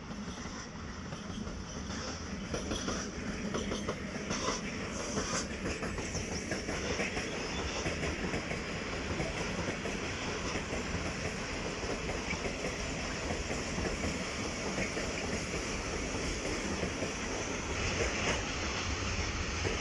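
Long freight train of open-top wagons hauled by an ET22 electric locomotive rolling past at speed, with a steady rumble and wheels clattering over rail joints. The sound swells over the first few seconds as the train draws level, with a run of sharp clicks a few seconds in.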